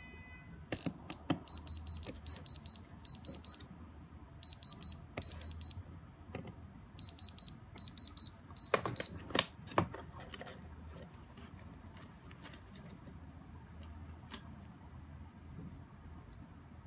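Handheld diamond tester beeping in quick runs of short high-pitched beeps, in three bursts of several seconds each, as its probe touches the pendant's stones: the beep a diamond tester gives when a stone reads as diamond. A few sharp clicks follow about nine seconds in.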